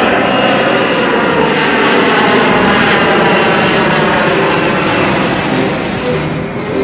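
Airplane engines running loudly, a dense steady rush that eases slightly near the end.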